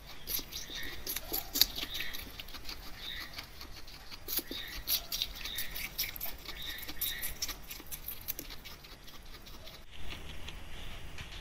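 Guinea pig biting and chewing juicy pear chunks: a rapid, irregular run of crisp crunches that stops suddenly about ten seconds in.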